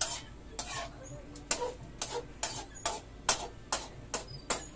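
A run of sharp clacks from kitchen utensils, about two a second and unevenly spaced, over a low steady hum.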